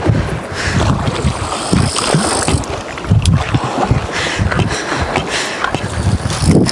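Strong gusty wind buffeting the microphone, with scattered knocks and rustles from fishing gear and a folded boat being carried on foot.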